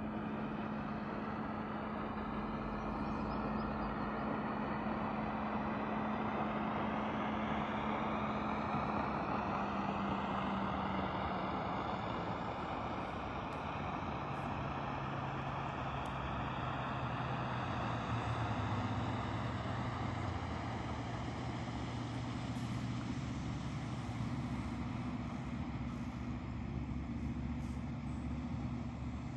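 An engine running steadily at low speed, its hum dropping to a lower pitch about halfway through.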